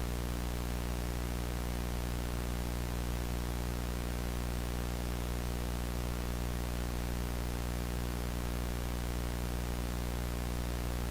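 Steady electrical hum with a hiss of static.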